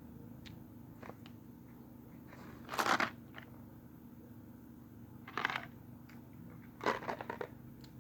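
A person chewing a jelly bean close to the microphone: three short crunching sounds, about three seconds in, at five and a half seconds and around seven seconds, over a faint steady hum.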